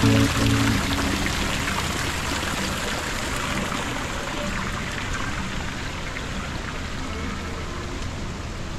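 Steady splashing, rushing water, with the background music ending in the first second or so.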